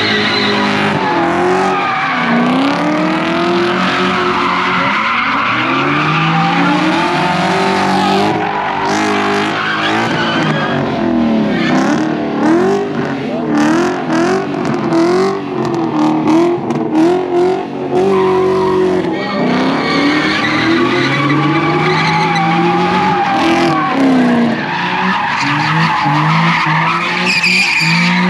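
Car engines revving hard, their pitch climbing and dropping again and again, over tires squealing as cars spin donuts.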